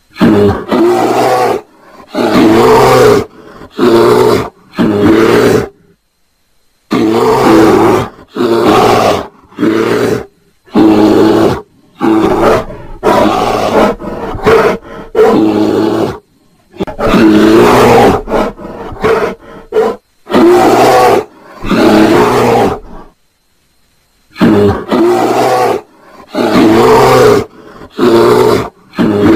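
Bear roaring and growling in a long series of loud calls, each about a second long, broken by short silent gaps.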